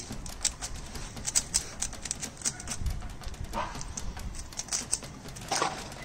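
Two 3x3 Rubik's cubes being speed-solved by hand: a fast, irregular clatter of plastic clicks as the layers are turned.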